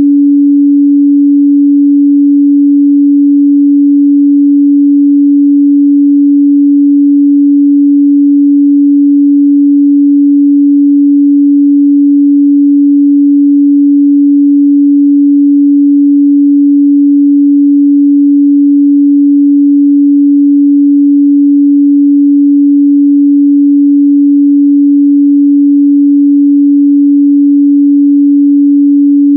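A 285 Hz pure sine-wave test tone, one steady unchanging pitch held loud and even throughout, used to check a speaker's or headphone's mid-bass response.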